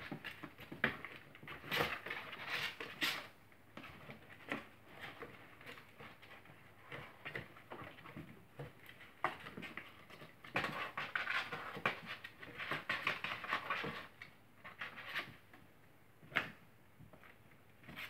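Kittens scrambling in and around cardboard boxes: irregular scratching, rustling and light knocks of paws and claws on cardboard and a wooden floor, busiest for a few seconds past the middle.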